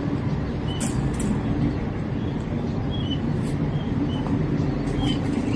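Steady low outdoor rumble, with a few faint, short, high chirps scattered through it.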